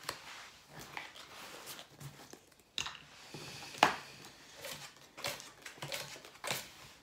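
Playing cards and casino chips handled on a felt blackjack table: used cards swept up and new ones slid out of a plastic dealing shoe, with scattered sharp clicks, the loudest just before the middle.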